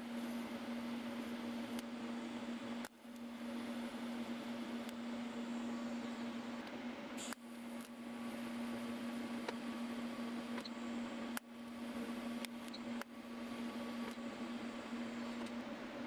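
Electric welder arc crackling with a steady electrical hum while a threaded rod is welded onto a steel rod. It runs in four stretches with short breaks where the arc stops.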